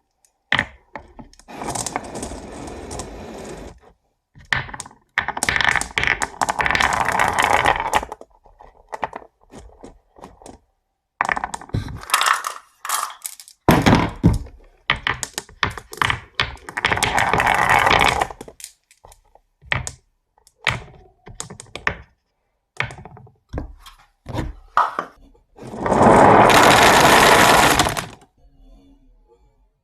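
Marbles rolling and clattering down a HABA wooden marble run: sharp clicks and knocks as they drop and hit the track, with several runs of a few seconds of continuous rolling rattle, the loudest near the end.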